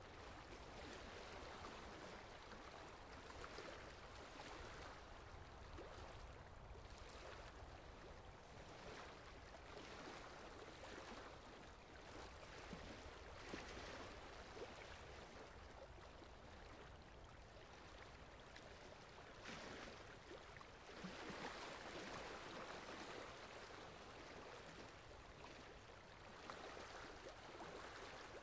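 Faint rain, a steady hiss of falling water that swells and eases every few seconds.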